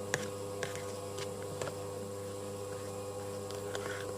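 Steady electrical hum with a few faint, scattered clicks.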